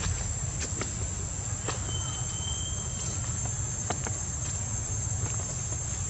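Steady, high-pitched drone of insects, cicadas or crickets, with scattered small clicks and rustles and a brief thin whistle about two seconds in.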